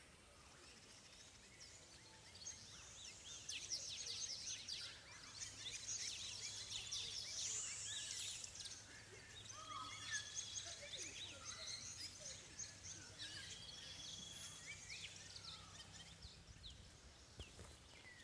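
Faint outdoor ambience of small birds chirping and whistling, with short high notes and a few held whistles, over a faint steady low hum.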